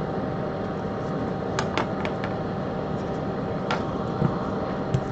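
Bench fume extractor fan running with a steady hum. A few light clicks from small tools on the bench come at about one and a half to two seconds in and again near four seconds.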